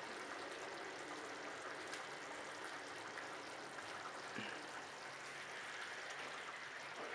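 A pan of chunky tomato and vegetable sauce simmering on the hob, giving a faint, steady bubbling hiss.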